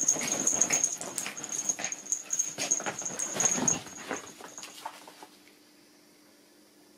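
Two small Japanese Terriers play-fighting on a sofa: busy scuffling of paws and bodies on the cushion and blanket, with short dog whines. The tussle dies down after about four seconds as the dogs separate, leaving it quiet.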